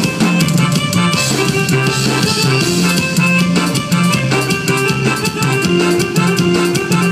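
Live band playing loud, upbeat Latin dance music on electric bass guitar, electronic keyboards and drum kit, with no singing. The bass moves in steady repeated notes, and a cymbal wash rises about a second in.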